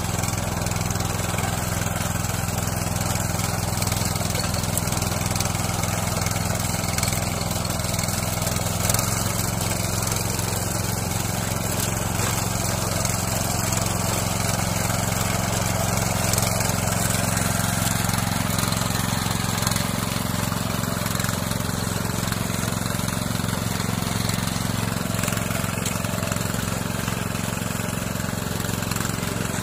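Yanmar AP4 walk-behind rice transplanter's engine running steadily while the machine plants seedlings.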